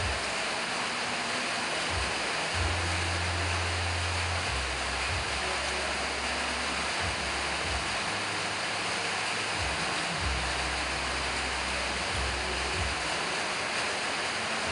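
Steady, loud hiss of background noise, with a deep low hum that cuts in and out several times.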